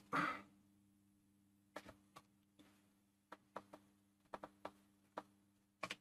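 A dozen or so faint, sharp little clicks and ticks, spread irregularly, as a thin metal pick levers at the snap-over plastic clips of a Schrack heater relay's case to ease it open.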